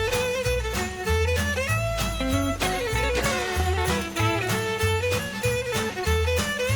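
Background music with a steady beat: an upbeat instrumental tune with a bowed-string melody over a walking bass.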